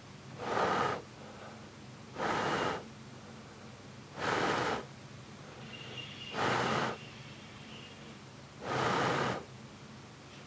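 Five short puffs of breath blown onto a flower's petals, about one every two seconds, each a soft rush of air lasting around half a second.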